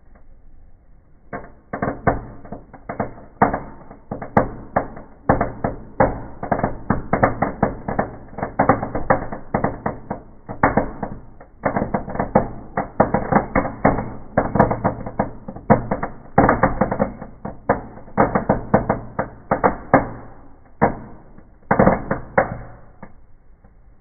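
A bundle of small firecrackers going off one after another in a wood fire inside a fireplace: a fast, irregular string of sharp bangs, several a second. The bangs start a second or so in and stop shortly before the end, with a brief lull about halfway.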